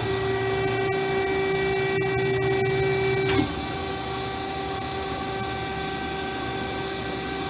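DoAll TF-2021NC hydraulic band saw running its automatic cycle: a steady machine whine over a hum, which drops out with a short click about three and a half seconds in, leaving a steady drone.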